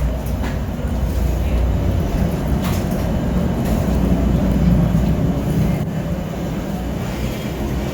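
Steady low rumble inside a Boeing 737 MAX 8 airliner's cabin, with a few faint clicks.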